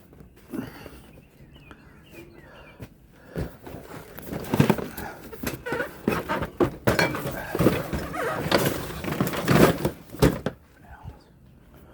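Metal and plastic junk being shifted and dropped by hand: a run of knocks, thunks and clatter starting about three seconds in and stopping near the end.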